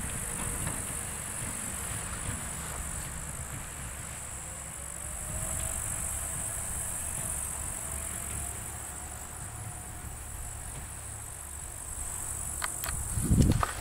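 Steady high-pitched chirring of grass insects over a low rumble, with a faint rising tone in the middle and a few clicks and a loud thump near the end.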